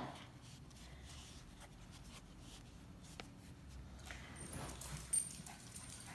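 Quiet room tone with faint handling sounds and a single sharp click about three seconds in.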